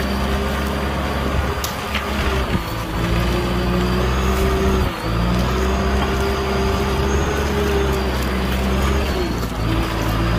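Kubota M6040 tractor's four-cylinder diesel engine running steadily under load as it pulls a disc plow, with a wavering whine above the engine note and a brief dip in loudness about halfway.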